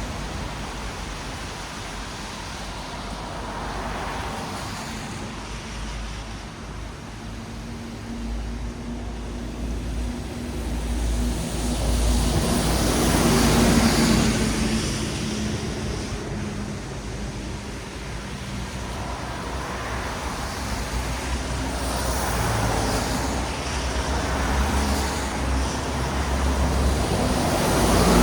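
Traffic on a wet city road: vehicles pass one after another with tyre hiss on wet asphalt over a low engine rumble, swelling and fading, loudest about halfway through and again near the end.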